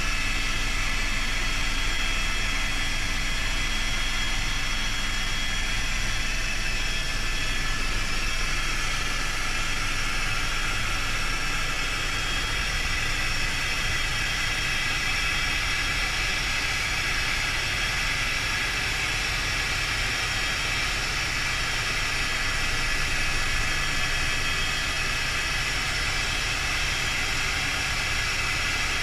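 Helicopter turbine engine and rotor in flight, heard from inside the cockpit: a steady whine with several high tones over a low rumble.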